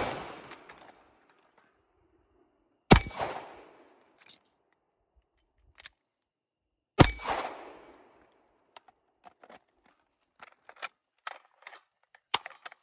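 Three single gunshots fired at steel targets, about three and then four seconds apart, each trailing off in a long echo. A run of light clicks and knocks follows over the last few seconds.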